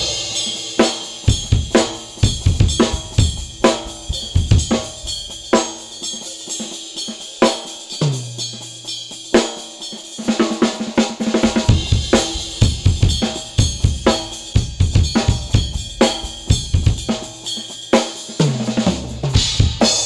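Acoustic drum kit played in a freely improvised groove: snare, bass drum, hi-hat and ringing cymbals struck in quick succession. Tom fills step down in pitch about eight seconds in and again near the end.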